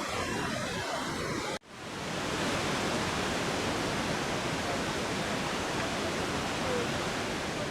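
Kegon Falls pouring into its plunge pool: a steady rush of falling water. The sound cuts out for an instant about a second and a half in, then swells back.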